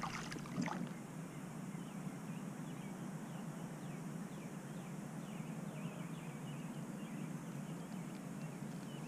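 Steady outdoor background hiss with many faint, short chirps from small birds calling, and a few light handling clicks in the first second.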